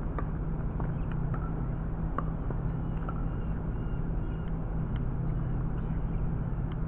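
A steady low outdoor hum with several faint, sharp pops spaced a second or more apart: pickleball paddles tapping the ball in a soft dinking exchange at the net.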